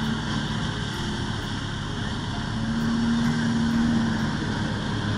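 Jet ski engine running steadily at high throttle to power a flyboard's water jet, heard across open water as a steady drone that swells slightly around the middle.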